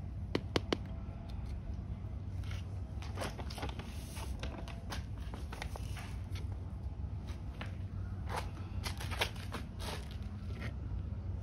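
A small hand tool stirring and scraping soil in a plastic pot, making irregular crunching scrapes and clicks, as organic fertilizer is worked into the soil. A steady low hum runs underneath.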